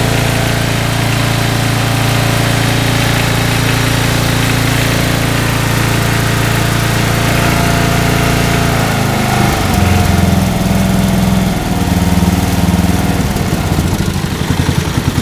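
Lawn tractor engine running steadily, then throttled down by the hand lever about nine seconds in; its speed drops and it settles into an uneven, pulsing low idle near the end. The engine wouldn't idle before, and the owner says it runs well only on partial choke.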